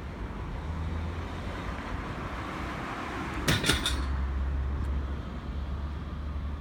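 Renfe Cercanías commuter train running, heard from inside the carriage as a steady low rumble. A quick run of several sharp clacks comes about halfway through.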